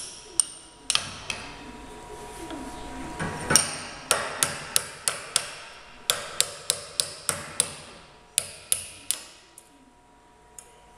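Ball-peen hammer tapping on a Jacobs drill chuck seated on removal wedges in a bench vise: about twenty sharp, ringing metal-on-metal taps in quick runs that thin out near the end. The blows are driving the chuck off its very tight taper arbor.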